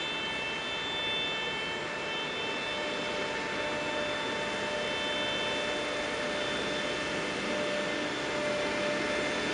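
Self-propelled CSX maintenance-of-way track machine travelling along the rails, its engine running with a steady whine that grows slowly louder as it approaches.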